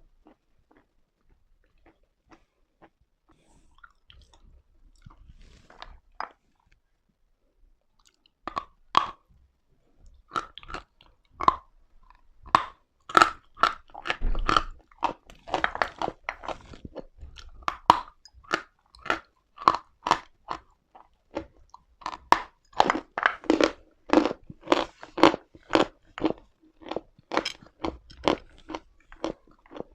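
Pieces of chalk being bitten and chewed, crunching in a steady rhythm of about two crunches a second. It is mostly quiet with faint clicks for the first eight seconds or so, then the chewing sets in.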